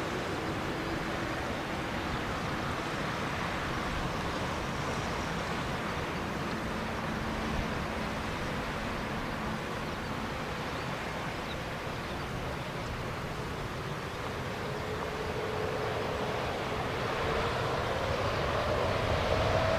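Boeing 747-8F freighter's four GEnx jet engines running at low taxi power: a steady rushing hum with faint tones. A whine rises in pitch and the sound grows louder near the end.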